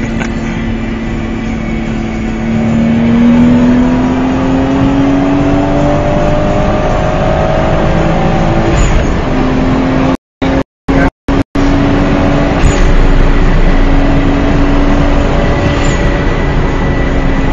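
A car engine under hard acceleration, with its note climbing steadily for several seconds. The note drops at an upshift about nine seconds in, then holds at speed. The sound cuts out completely several times for fractions of a second around ten to eleven seconds in.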